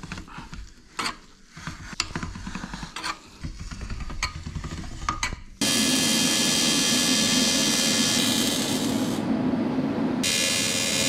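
Light metal clicks and knocks of pipe handling, then an AC TIG welder's arc starting abruptly about halfway through on aluminium intercooler piping. The arc gives a loud, steady electric buzz with a hiss, and the hiss drops away for about a second near the end.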